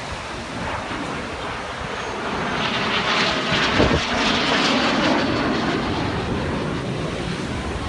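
Military jet flying past overhead. Its engine roar swells to a peak about halfway through and then slowly fades.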